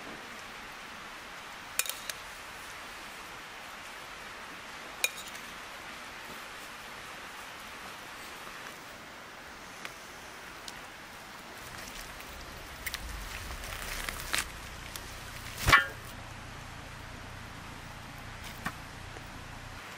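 Scattered light clinks of a spoon and metal serving platters being handled, with the loudest clink about three quarters of the way through, over a steady background hiss.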